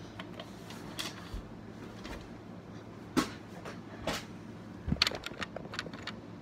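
Plastic Lego bricks being handled and pressed into a build: scattered sharp clicks and knocks, with a quick cluster of them about five seconds in.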